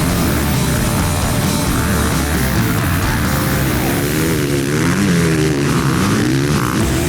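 Rock music with a heavy, hard-edged sound.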